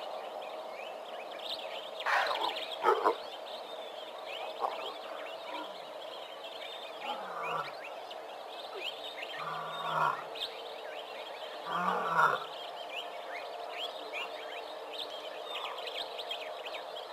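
Young lions growling and snarling a few times as they play-fight: a loud rough snarl about two seconds in, then three short growls spaced a couple of seconds apart. Steady bird chirping runs underneath.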